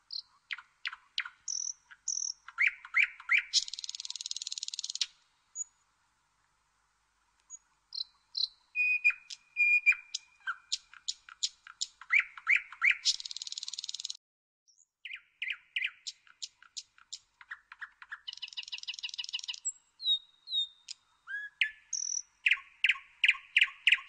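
Nightingale singing in separate phrases: rapid runs of repeated clicks and whistled notes that build into dense, buzzy rattling trills, with short silent pauses between phrases.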